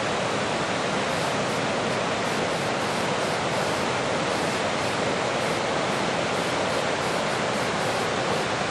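Waterfall and river rapids: a steady, even rush of water.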